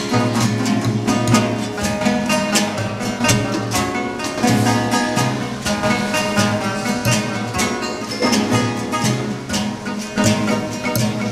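Acoustic guitars played live: strummed chords in a steady rhythm with picked melody notes.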